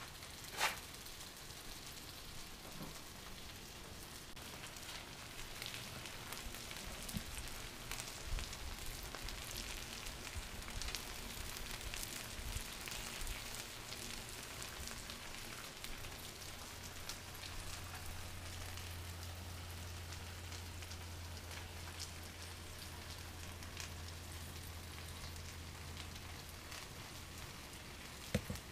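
Halved red potatoes sizzling in oil on a Blackstone flat-top griddle: a steady frying hiss scattered with small pops and crackles. A sharp click sounds near the start, and a low hum joins in for about ten seconds in the second half.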